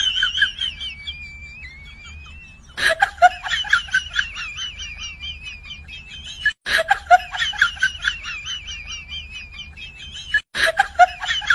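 High-pitched, sped-up laughter sound effect, a fast chattering giggle that loops and starts over about every four seconds, over a low hum.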